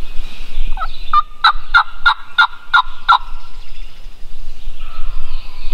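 Wild turkey calling: a short rising note, then a run of six evenly spaced yelps, about three a second.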